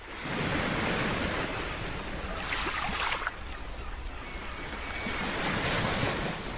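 Ocean waves breaking, the surf swelling in two surges: the first falls away sharply about three seconds in, the second builds to a peak near the end.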